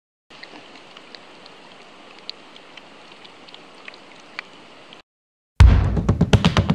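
Floating glacial ice fizzing: a faint steady hiss with scattered tiny pops as trapped air escapes from the melting ice. It cuts off, and about a second later music with heavy drums starts.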